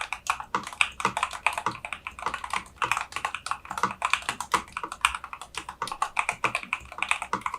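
Fast typing on a Machenike CK600 mechanical keyboard with lightweight linear switches: a rapid, unbroken run of keystroke clacks.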